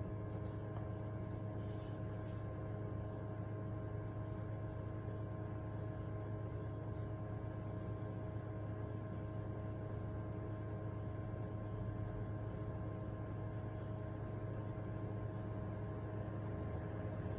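A steady machine or electrical hum with several fixed tones over a low even hiss.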